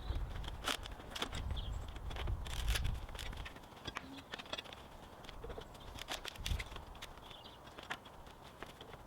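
An old wooden pallet being levered apart with a pallet buster bar: knocks and a low rumble in the first three seconds, then scattered sharp cracks and clicks of boards and nails working loose.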